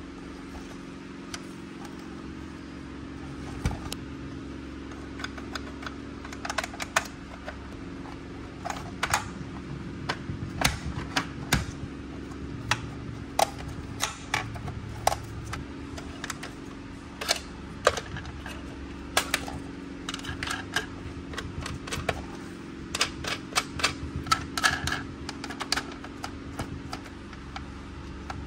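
Small hard plastic toy parts of a Polly Pocket compact playset clicking and tapping as gloved hands handle and set them in place, in irregular sharp clicks that come sparsely at first and then thick and fast. A steady low hum runs underneath.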